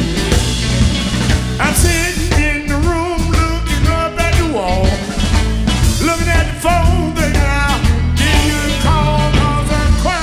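Live electric blues band playing: electric guitars, bass guitar and drums, with a man's voice singing wavering phrases over it from about two seconds in.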